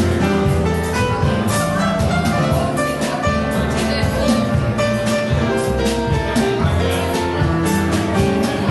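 Small acoustic jazz band playing a steady tune: drum kit with regular cymbal strokes, a walking double bass line and held melody notes.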